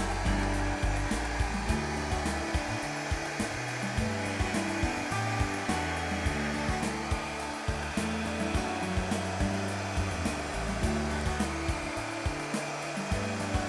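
Small hair dryer blowing steadily on wet acrylic paint, under background music with a steady beat and a moving bass line.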